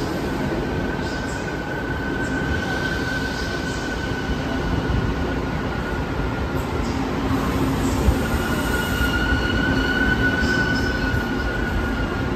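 Tze-Chiang express passenger carriages rolling slowly past along the platform track: a steady rumble of wheels on rail with a high, held squeal from the wheels. The squeal fades out about seven seconds in and comes back a second later.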